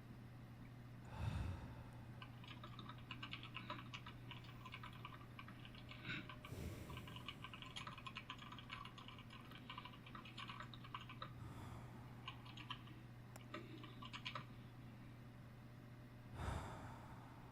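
Typing on a computer keyboard: quick runs of soft key clicks with short pauses. A slow breath sounds every five seconds or so, over a steady low hum.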